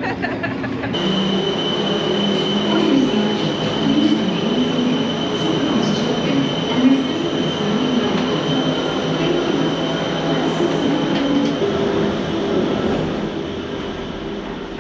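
Disney Skyliner gondola-lift station machinery: gondolas rolling along the motorized track off the cable, with wheels squealing in wavering tones over a steady high whine. It starts abruptly about a second in.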